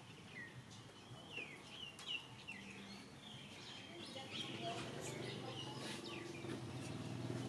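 Birds chirping: many short, high chirps overlapping one another, over a low steady hum.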